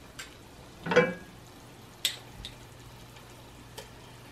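Metal spoon scraping and tapping ginger-garlic paste off into a stainless steel pot, with one louder clink about a second in and a few light taps after. Underneath is a faint steady sizzle from the onions and berbere frying in the pot.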